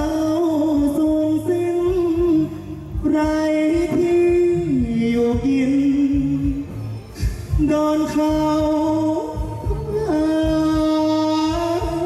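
Thai likay singing: a solo voice through a microphone, holding long notes that step and slide between pitches, over an amplified backing band with a steady low beat.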